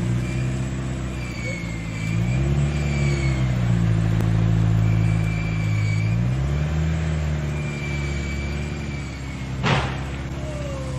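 A motor vehicle engine running and revving up twice, its pitch rising and then holding steady. A single sharp knock comes near the end.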